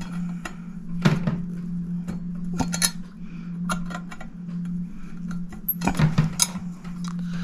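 Screwdriver and metal clock parts clicking and clinking at irregular intervals while a very tight screw is worked out of a crystal regulator clock, over a steady low hum.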